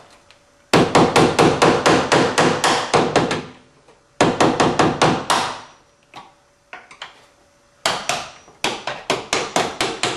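Hammer striking the end of a screwdriver held against the bottom of a door hinge pin, driving the pin up out of the hinge. The taps come in quick runs of about five a second, each with a short metallic ring, with a few single taps between the runs.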